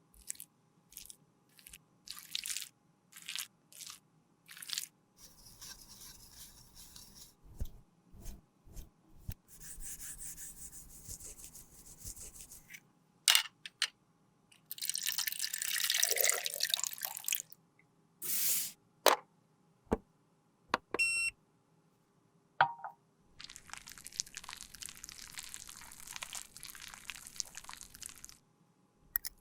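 Close-miked handling sounds of cosmetics being worked by hand: a scattered series of sharp taps and clicks, broken by several longer hissy stretches, the loudest about 15 to 17 seconds in, and a short ping a little past 20 seconds.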